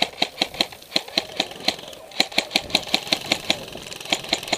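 Rapid airsoft rifle fire: strings of sharp cracks at about six shots a second, with brief pauses about two seconds in and again near the end.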